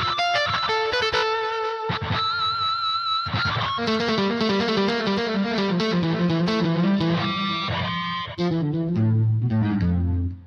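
Korg Pa700 arranger keyboard playing one of its factory presets: a melodic run of notes and chords, with short breaks about 2 and 3.5 seconds in and a low bass line coming in near the end.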